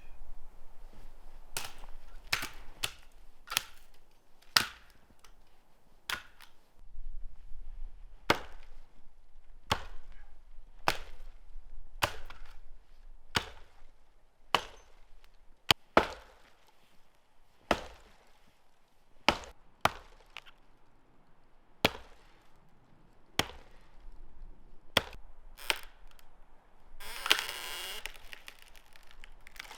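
Firewood being chopped: about twenty sharp, separate blows, roughly one every second or so. Near the end a longer rasping crackle lasts about a second.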